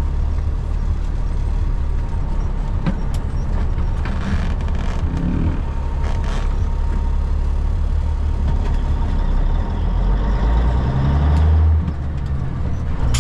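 Semi truck's diesel engine running under way, a heavy steady drone heard from the cab, with a few light clicks. About ten seconds in the engine note climbs, then drops off suddenly shortly before the end.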